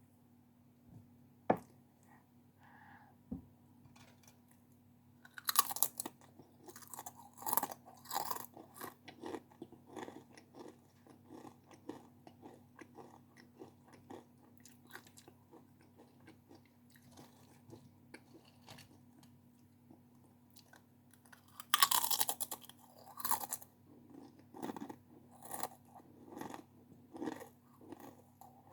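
Close-miked eating of a crunchy snack. A few sharp clicks come first. Loud crunching bites follow about five seconds in and again about twenty-two seconds in, with steady crunchy chewing between and after them.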